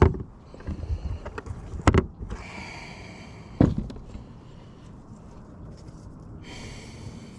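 Three sharp knocks, at the start, about two seconds in and a little after three and a half seconds, from gear and a cooler being handled on a fishing kayak, with two short hissing rustles or splashes between them.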